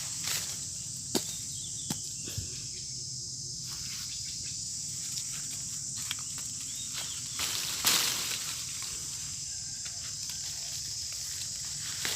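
Steady high-pitched insect chorus, with a few short rustles and knocks over it; the loudest rustle comes about eight seconds in.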